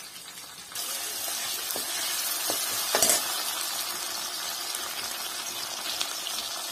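Sliced onions sizzling in hot oil in a metal kadai, stirred with a steel spoon. The sizzle jumps up sharply about a second in, with one louder burst about three seconds in.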